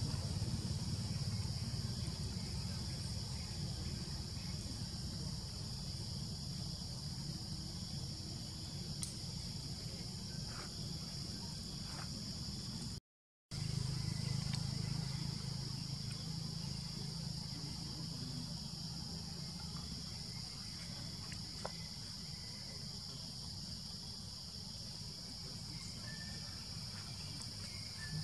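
Forest ambience: a steady, high insect drone over a low rumble. It cuts out briefly about halfway through.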